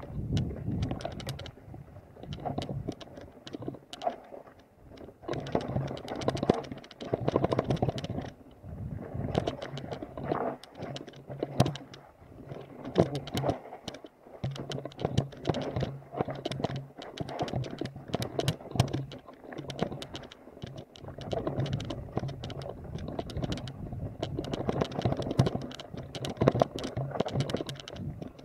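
Mountain bike rattling and clattering over a rough, leaf-covered forest trail: rapid, irregular knocks and clicks over tyre rumble, coming in uneven surges.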